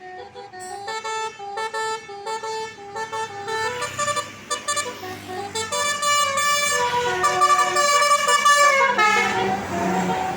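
A Basuri multi-note 'telolet' bus horn plays a tune of held notes that step up and down. From about four seconds in it gets louder and other horn tones overlap it.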